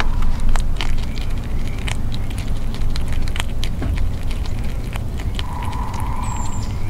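Gray squirrel gnawing a peanut close to the microphone: scattered sharp crunching clicks over a steady low rumble, with a brief steady hum about two-thirds of the way through.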